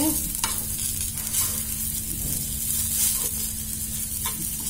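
Stuffed okra sizzling in oil in a shallow pan on low heat while a steel spoon turns the pieces, with a few light clicks of the spoon against the pan.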